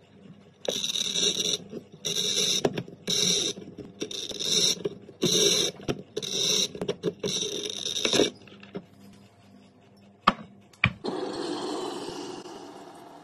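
Bottle cutter's scoring wheel scratching a line into a glass wine bottle as the bottle is turned on the rollers, in a series of short, high, hissing scrapes. Near the end come two sharp clicks, then water from a kettle splashing over the scored glass, which heats the score line to crack the bottle.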